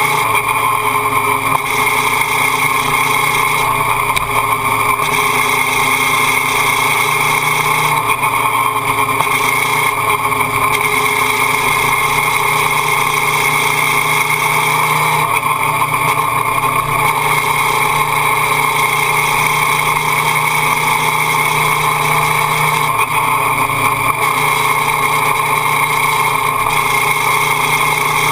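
Motorcycle engine running at fairly steady revs while riding, heard close up on the bike with wind and road noise.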